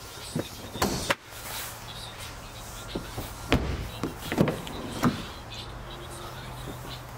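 A run of sharp clicks and knocks as a car's rear door handle and latch are worked, over a steady low hum.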